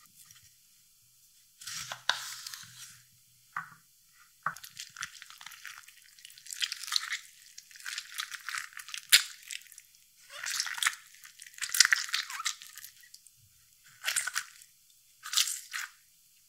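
A halved lemon squeezed by hand over a bowl, a spoon twisted into its flesh to work out the juice, in a series of wet, crunchy bursts with short pauses between.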